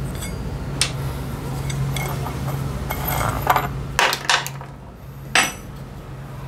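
Metal tools and parts clinking and knocking during work on a scooter's belt drivetrain: scattered sharp knocks, several close together past the middle, over a steady low hum.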